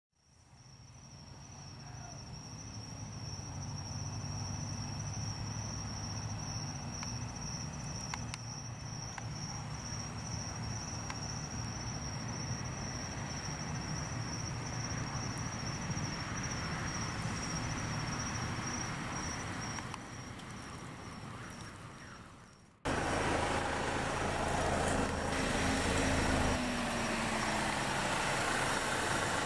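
A car engine idling, with crickets keeping up a steady high trill; it fades in over the first few seconds. About three-quarters of the way through, the sound cuts suddenly to a louder, closer engine hum.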